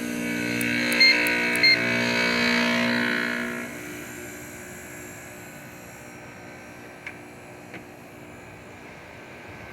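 Heat pump outdoor unit running, a steady mechanical hum with several pitched tones. Two short electronic beeps sound about a second in. The hum drops much quieter a little under four seconds in.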